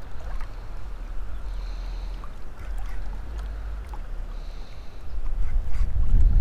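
Wind rumbling on the microphone, growing louder about five seconds in, with a few faint clicks and two faint high-pitched notes.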